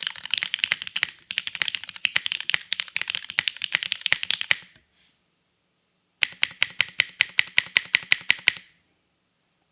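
Typing on a custom Adamas 65 mechanical keyboard with lubed Cherry Retooled Black linear switches and GMK keycaps. Irregular typing runs for about four and a half seconds. After a short pause comes a quick, even run of keystrokes, about nine a second, which stops a little before the end.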